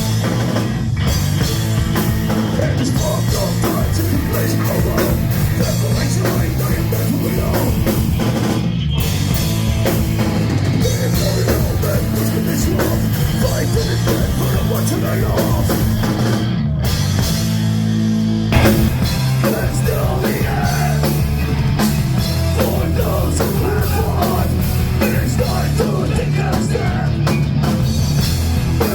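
Loud heavy rock music with a drum kit, breaking off briefly twice, about 9 and 17 seconds in, with a held note before the band comes crashing back in.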